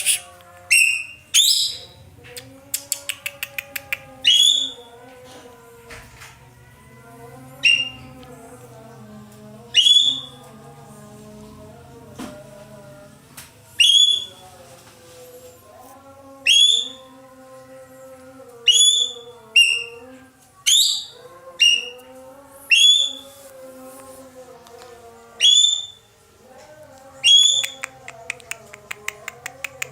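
Ekek keling bird calling: loud, sharp whistled notes, each with a quick bend in pitch, repeated every one to three seconds. A couple of fast rattling trills come near the start and near the end, over a faint low drone.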